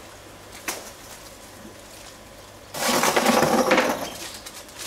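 Bio media pieces (about 3 kg of small white tubes) poured from a plastic bag into a plastic storage tub. They clatter in one dense rush lasting about a second, a little under three seconds in.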